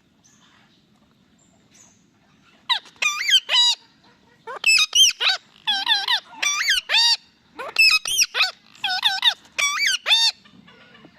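Indian ringneck parakeet calling: after a couple of quiet seconds, a long run of short, high-pitched screeching calls in quick clusters of two to four, each call sharply bending in pitch.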